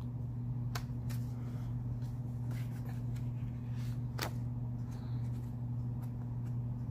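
A paper greeting card being handled while it is read: scattered light clicks and rustles over a steady low hum.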